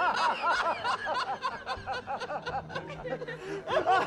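A man laughing hard: a long run of quick, high-pitched "ha" bursts that eases off briefly about three seconds in, then starts up again.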